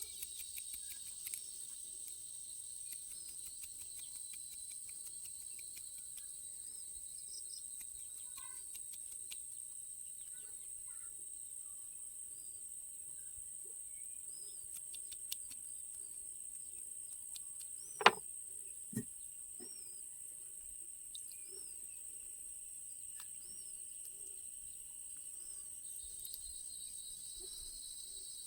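Outdoor ambience: a steady high-pitched insect drone with scattered bird chirps. Two sharp knocks come about two-thirds of the way through, the first the loudest sound.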